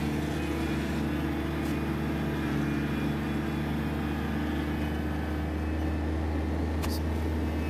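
Zero-turn mower's engine running steadily at a constant pitch, with a single short click near the end.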